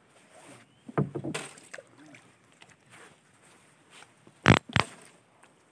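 Two sharp thumps about a third of a second apart, about four and a half seconds in, with fainter knocks and rustling about a second in.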